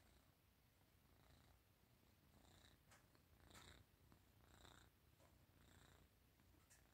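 Munchkin cat purring faintly and steadily, with soft breathy sounds about once a second in the second half.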